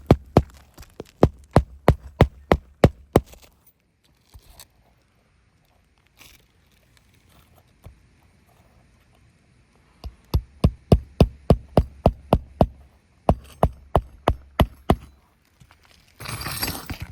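Runs of sharp knocks or taps, about three a second: one run at the start, then quiet, then a longer run from about ten seconds in. Near the end comes a short hissing rustle.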